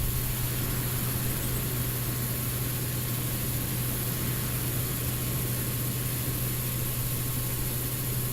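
Electric fuel pump, wired straight to a battery, running steadily with a low hum and hiss as it pumps gasoline out of the fuel tank.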